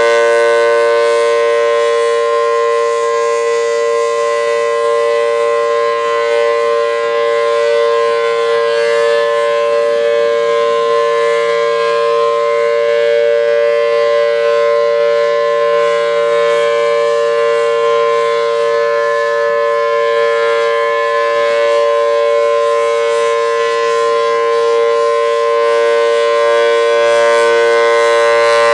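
Federal Signal Thunderbolt 1000T outdoor warning siren with a 4/5-port chopper, sounding a steady wail: two notes held together as a chord at a constant pitch. Its loudness dips slightly and swells back.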